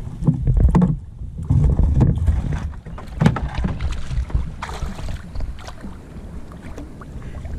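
Wind rumbling on the microphone and water sloshing around a fishing kayak, with irregular knocks and clicks.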